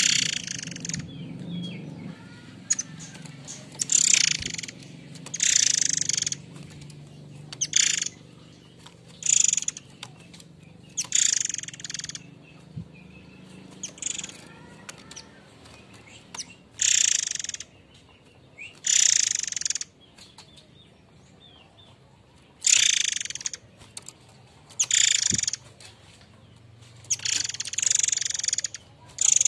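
Murai air mancur songbird giving its harsh call in repeated short bursts, one every one to two seconds.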